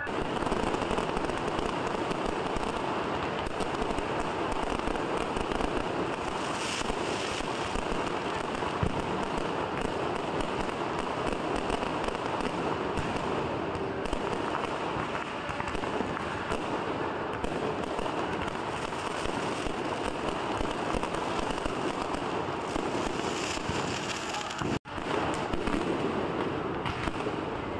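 Aerial fireworks display going off: a continuous dense crackle of many bursting shells with sharper bangs now and then. The sound drops out for an instant near the end.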